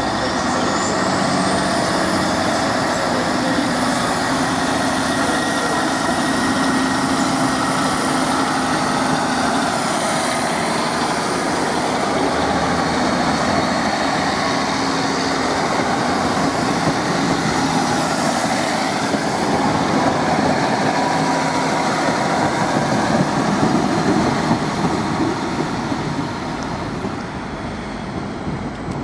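British Rail Class 150 Sprinter diesel multiple unit pulling away under power: its underfloor diesel engines run steadily, with a thin high whine that rises in the first couple of seconds and holds.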